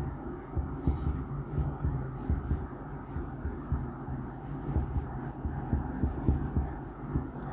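Marker writing on a whiteboard: irregular soft knocks and scratches with faint high squeaks, over a steady low hum.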